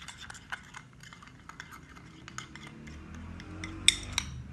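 Metal spoon stirring a thick face-mask paste of powder and rose water in a small ceramic bowl: quick scrapes and light clinks of the spoon against the bowl, with a few louder clinks about four seconds in.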